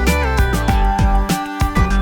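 Background music with a steady beat and sustained melodic notes.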